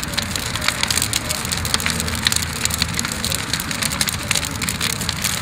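Wood bonfire crackling and popping, with many sharp, irregular snaps over a low background rumble.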